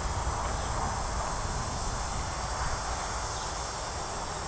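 Steady insect chirring from the grass, with a low rumble underneath.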